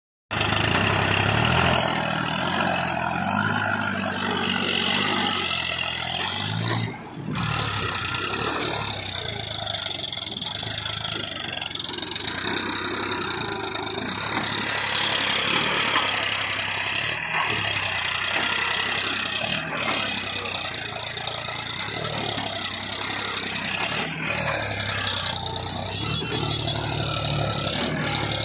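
Powertrac 435 Plus tractor's three-cylinder diesel engine running under load as the tractor works on a steep sand and gravel heap, steady throughout with a brief dip about seven seconds in.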